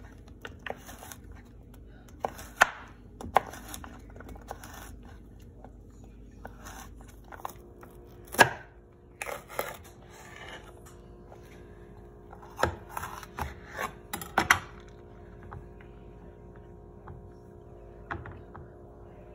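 Chef's knife chopping Mexican gray squash and poblano peppers on a bamboo cutting board: irregular sharp knocks of the blade striking the board, coming in scattered clusters, the loudest about eight seconds in.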